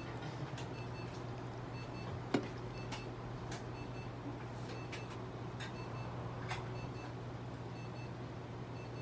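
Quiet electronic beeps repeating at a regular pace over a steady low machine hum, with a few light clicks and knocks from handling; the sharpest knock comes about two and a half seconds in.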